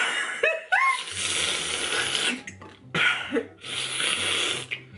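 Two people slurping juice through plastic straws with mouthguards in their mouths: loud, rattly gurgling and sputtering in long bursts with short breaks between. A short high rising squeal of a voice comes about half a second in.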